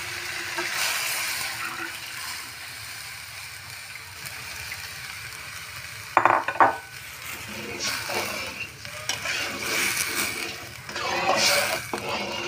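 Water sizzling as it meets hot oil and fried spice paste in a wok. About six seconds in there is a brief loud clatter, then a metal spatula stirring and scraping around the pan in repeated strokes.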